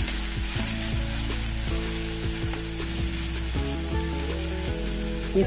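Chopped onions, green chillies and capsicum sizzling in coconut oil in a steel kadai while being stirred with a wooden spatula, sautéed until their moisture cooks off. Background music with held notes plays underneath.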